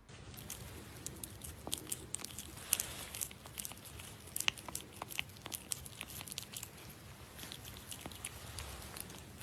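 Irregular crisp crunching clicks, several a second, with the sharpest ones about three seconds and four and a half seconds in.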